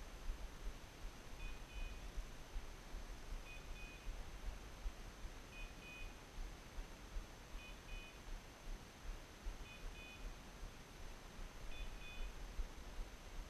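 Pointing dog's beeper collar sounding its on-point alarm: a short group of high beeps repeated about every two seconds, the signal that the dog is standing motionless on point on a woodcock.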